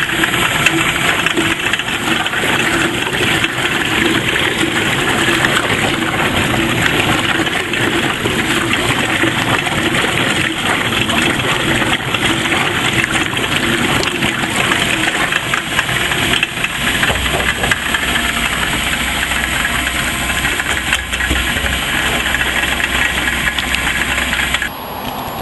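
Home-made clay slurry blender running: a steel drum with mixing blades driven by a jacked-up car's wheel hub through a driveshaft, the car's engine and the churning slurry making a steady mechanical noise. A deeper hum joins about two-thirds of the way through, and the noise drops away suddenly just before the end.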